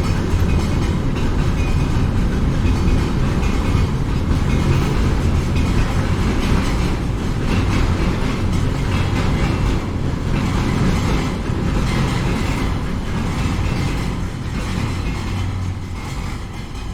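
A train passing, its wheels clacking over rail joints amid a steady rumble, fading away near the end.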